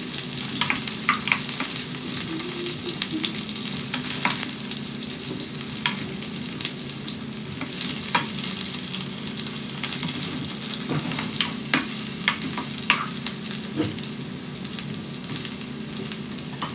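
Cubed eggplant sizzling as it fries in hot oil in a frying pan, with scattered sharp clicks and pops as more pieces are dropped in and turned with tongs.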